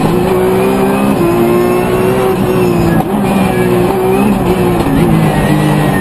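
Rally car engine heard from inside the cockpit, run hard at high revs, its pitch stepping several times as the driver changes gear or lifts off between corners.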